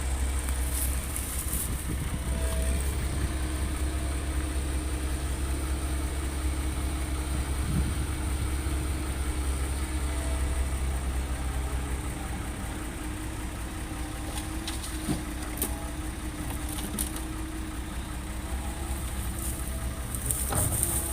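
Heavy diesel engine of earthmoving machinery running steadily, a deep drone that eases off about twelve seconds in, with a few faint clicks and knocks.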